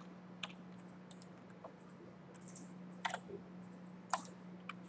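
Scattered, faint clicks of a computer keyboard and mouse being worked, the clearest about three and four seconds in, over a steady low hum.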